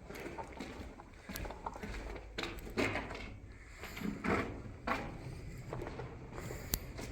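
Footsteps and light knocks, irregularly spaced, with a low rumble underneath.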